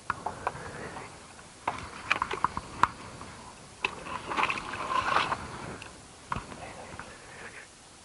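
Irregular knocks, clatter and scraping from lengths of pipe being handled and moved about, with a busier stretch of scraping and rustling in the middle.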